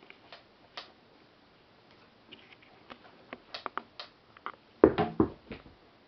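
Scattered light taps and clicks of a rubber dust-blower bulb being set down and batted about on a wooden desk. About five seconds in comes a quick run of louder thumps as the bulb drops off the desk and bounces.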